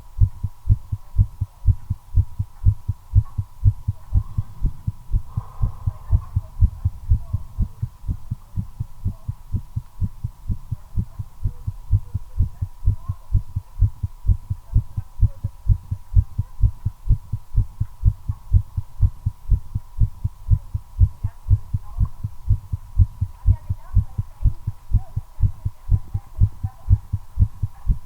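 Human heartbeat: a rapid, regular train of low thumps, quickened by nicotine while smoking a cigarette.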